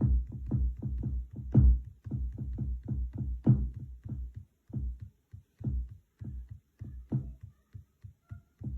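Electronic drum samples, mostly deep pitched bass-kick hits, triggered in an uneven rhythm from a Native Instruments Maschine Mikro Mk3's pads, with short gaps between runs of hits.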